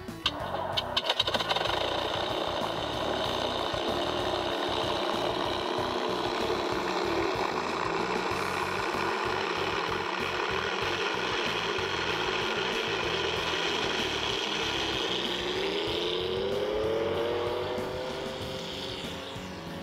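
Engine sound simulator on an RC model T-28 trainer, playing a piston aircraft engine sound through its speaker: steady running with a few sharp pops about a second in, then the pitch rises near the end as the throttle opens for the takeoff roll.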